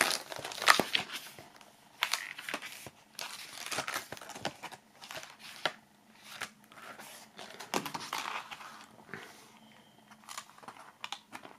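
Pages of a spiral-bound paper script being leafed through: irregular paper rustles and page flaps, with a few short sharp flicks.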